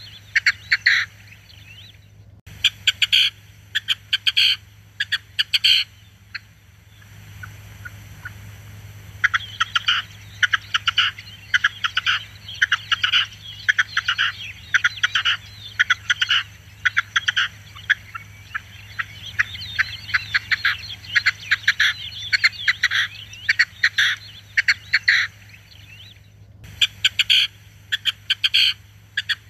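Red-legged partridge calling: fast runs of short repeated notes in several bouts, with short pauses between them.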